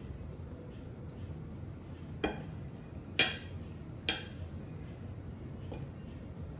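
Metal cutlery clinking against a ceramic plate three times, short ringing chinks about a second apart, the second the loudest.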